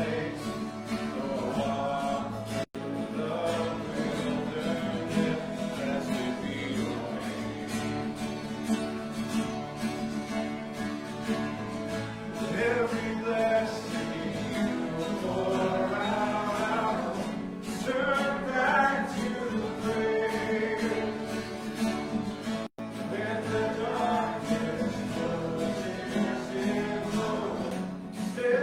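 Worship song: voices singing together over acoustic guitar accompaniment. The sound cuts out for an instant twice.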